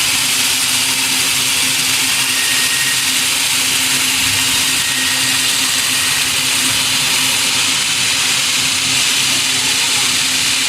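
Sawmill machinery running steadily: an even mechanical hiss over a constant low hum.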